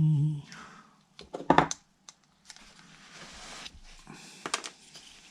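Sharp clicks and light rattling of small lamp-holder parts being handled and prised apart, with a cluster of clicks about one and a half seconds in and another near the end.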